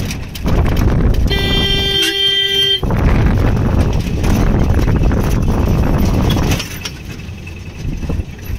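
Old open-sided jeep running down a winding hill road, its engine and the rush of wind and tyres loud in the open cab, with one steady horn blast about a second in that lasts about a second and a half. The running noise drops noticeably for the last two seconds.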